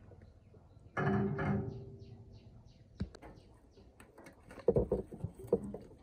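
Metal clanking at a chopper's knife slot: a sharp clank about a second in that rings briefly, then a click and a quick series of lighter knocks as the steel blade and parts are handled against the housing.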